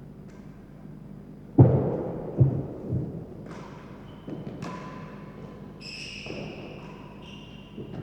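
Real tennis ball thudding in the enclosed court: one loud hit about one and a half seconds in that rings on, followed by two softer thuds within the next second or so.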